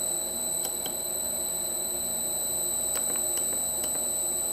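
High-pitched squeal from a 2 hp three-phase motor run by a Huanyang VFD at a low setting of 10 Hz, a steady whine with several fixed tones, the lathe spindle barely turning. A few faint clicks sound among it.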